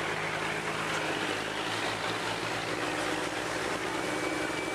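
River boat's engine running steadily with a low hum, under the rush of churning water and wind as the boat moves along the pier.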